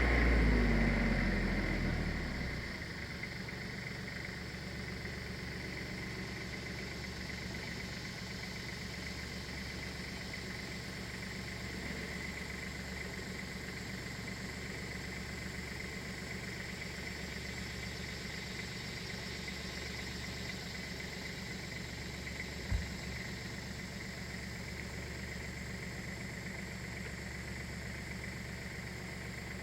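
Small engine idling steadily with a constant high whine, after a louder run dies down over the first two seconds. One short knock about 23 seconds in.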